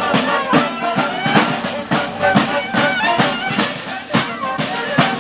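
Live street band playing: drums keeping a steady beat about twice a second under brass and wind melody lines.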